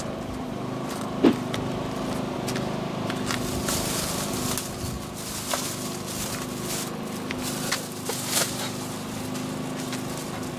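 Gear being handled at the open back of a small SUV: scattered clicks, knocks and rustles over a steady hum, with the sharpest knock about a second in.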